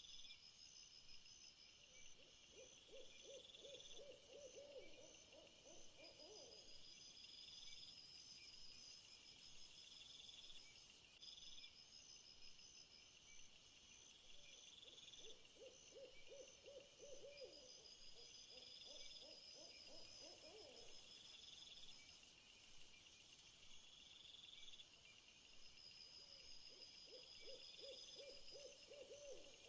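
Faint night-time nature ambience: insects chirp and trill steadily in a high register. Three times, an owl gives a rapid, quavering run of low hoots lasting a few seconds.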